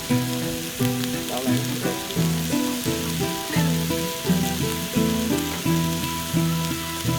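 Background music with a steady beat of repeated melodic notes, over a steady sizzling hiss.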